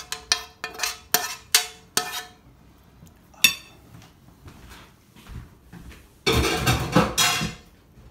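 A metal spoon knocking and scraping against a pan several times in quick succession, each knock ringing briefly, as the last of the sauce is scraped out onto a plate; one more clink follows a little later. Near the end comes a loud rustling scrape lasting over a second.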